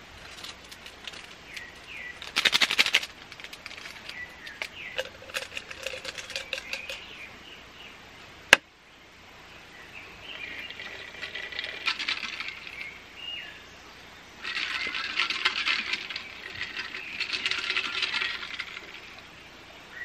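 Small handling sounds at a camp table: a brief clatter a few seconds in and a sharp click about eight seconds in, then water poured from a plastic bottle into an insulated stainless tumbler. Birds chirp in the surrounding forest.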